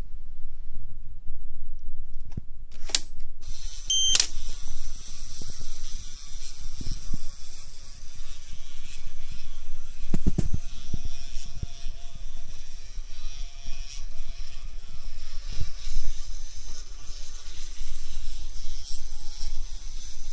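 Small LEGO train motors whirring while the trains run along plastic LEGO track, with mechanical clicking and rattling. There are a few sharp clicks in the first four seconds and a heavier knock about ten seconds in.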